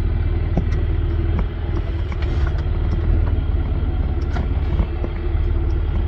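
Four-wheel drive rolling slowly down a rough dirt track: a steady low engine and tyre rumble, with scattered light knocks and rattles as it goes over the bumps.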